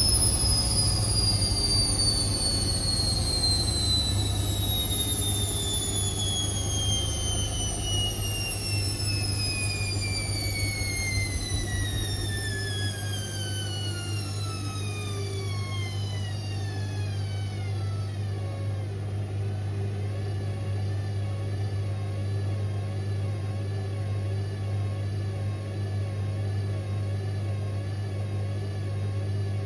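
Indesit IWC6165 washing machine winding down from a spin: the motor's whine falls steadily in pitch over about seventeen seconds as the drum slows. A steady low hum carries on underneath, and a deeper rumble drops away about halfway through.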